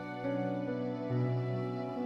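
Soft, slow background music: sustained pitched notes over a low held bass, the notes changing about once a second.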